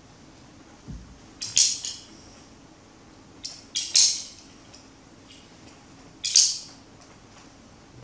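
A group of children striking sticks together, a ragged clack repeated about every two and a half seconds. Each one is a few early clicks leading into the main loud clack.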